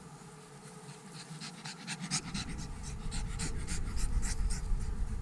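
Brussels Griffon panting rapidly close to the microphone, about four breaths a second, starting about a second in, over a low rumble.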